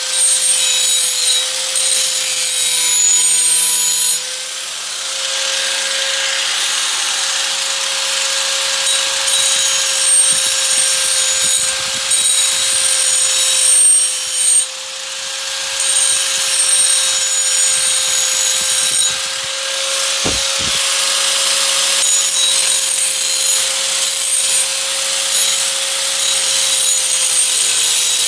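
Electric angle grinder running with a steady high whine, its wheel grinding the edge of a metal garden tool to sharpen it. The hissing grind rises and falls as the work goes on, with two quick knocks about twenty seconds in.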